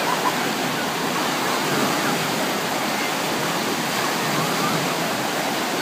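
Waves in an artificial wave pool breaking and churning, a steady rush of water.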